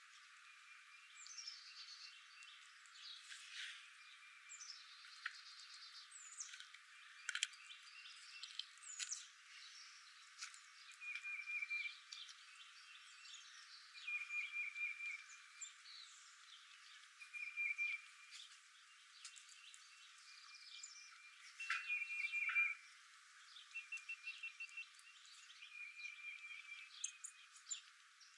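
Several wild birds chirping and whistling, faint, with a short trill that repeats every two to three seconds among varied chirps.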